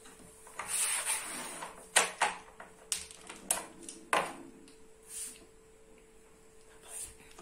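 Carrom game: a handful of sharp clicks, about five over two seconds, as the striker knocks against carrom men and the pieces click on the wooden board and its frame.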